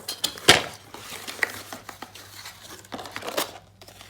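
Wrapping being crinkled and torn as packaging is handled and opened, in irregular rustles with the loudest about half a second in and another near three and a half seconds.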